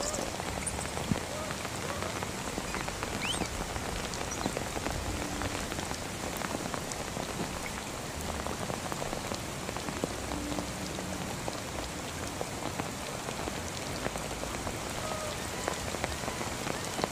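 Steady rain falling on a creek's surface and wet ground, a dense patter of drops. A few faint short chirps sound through it.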